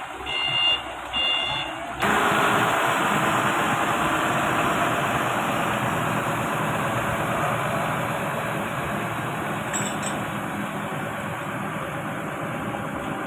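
A 7-ton forklift's reversing alarm beeps twice, about once a second. About two seconds in it gives way abruptly to the forklift's engine running steadily and loudly as the machine moves with its load, slowly easing off.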